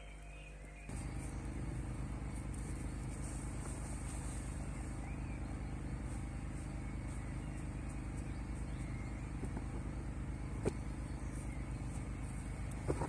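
Steady low mechanical hum of a running motor that starts suddenly about a second in, with one sharp click near the end.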